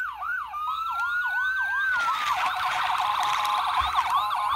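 Two toy electronic sirens sounding at once, from the Imaginext Rescue Heroes Sergeant Siren police car and Matt Medic ambulance. Fast repeating yelps overlap a slowly rising wail, and a rapid warble joins in about two seconds in.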